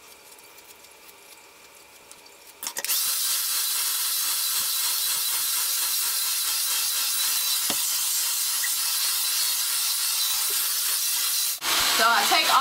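Handheld hair dryer switched on about three seconds in, running steadily on its high setting with a rush of air. It cuts out briefly near the end and comes straight back on.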